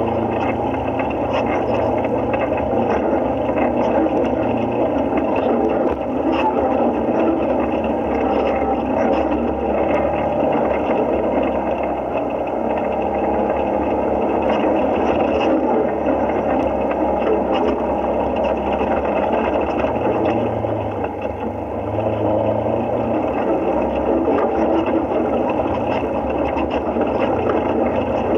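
Side-by-side UTV's engine running steadily as it climbs a rocky trail, heard from the driver's seat; it eases off briefly about three quarters of the way through.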